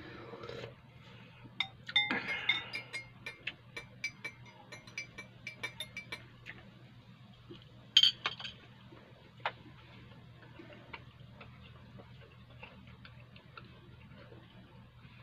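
A metal teaspoon stirring tea in a glass cup, clinking rapidly against the glass for several seconds. About eight seconds in comes one loud bite into a shawarma, followed by faint chewing and mouth sounds.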